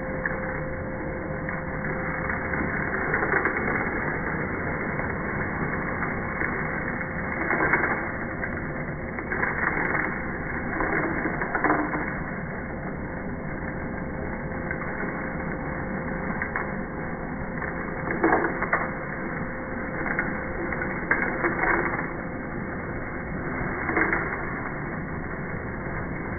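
Vacuum cleaner running steadily as it sucks up loose polystyrene insulation beads, with repeated short surges of crackling as clumps of beads are drawn up the hose.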